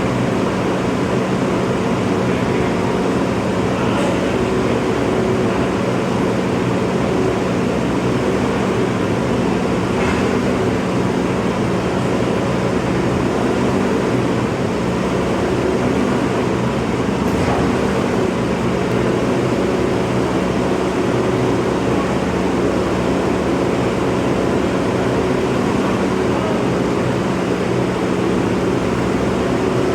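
Bobcat skid steer's engine running steadily at constant speed, a continuous even drone that does not rise or fall.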